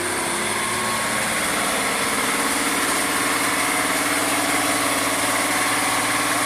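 Praga V3S truck's air-cooled Tatra inline-six diesel running steadily under load as the truck works through deep mud, a steady industrial-sounding engine note.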